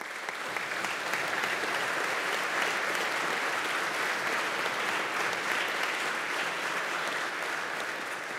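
Large audience applauding steadily, easing off slightly near the end.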